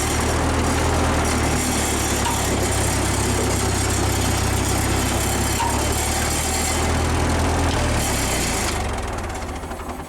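1947 Ford 2N tractor's four-cylinder flathead engine running steadily, then dying away near the end.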